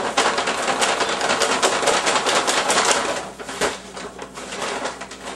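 A double paper bag holding seasoned flour and catfish fillets being shaken hard to coat the fish: a fast, even crinkling rattle of paper that eases to softer, scattered rustling about three seconds in.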